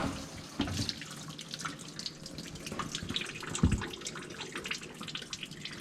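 Water splashing and spraying inside a GE dishwasher running a wash cycle, with a couple of sharp knocks near the start and a louder dull thump about halfway through.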